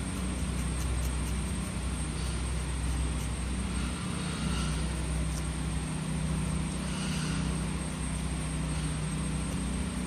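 A steady low mechanical drone runs throughout. Faint scratches of a metal scratch knife across scratchboard come through now and then, a few times.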